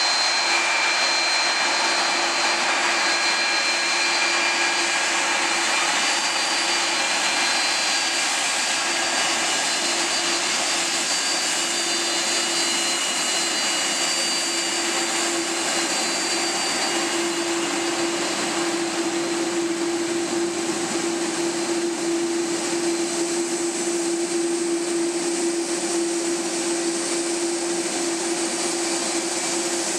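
KLM Airbus A330-200's twin jet engines running at low taxi power, a steady whine and rush. A low steady hum grows stronger in the second half as the airliner comes closer, while thin high whistles fade out by the middle.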